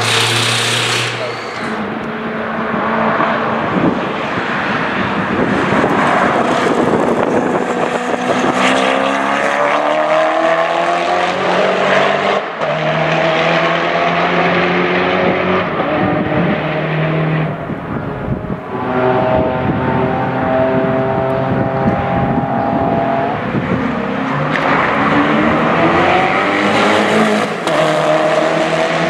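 Koenigsegg Agera RS's twin-turbo V8 accelerating hard on track, its pitch climbing through each gear and dropping back at the upshifts, several times over.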